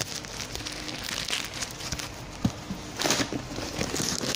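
Packaging being handled and opened: irregular crinkling and rustling of plastic and cardboard, busiest about three seconds in.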